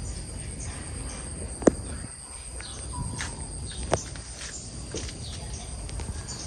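Rural outdoor ambience: birds chirping in short calls over a steady high insect drone. Two sharp clicks stand out, about two seconds apart.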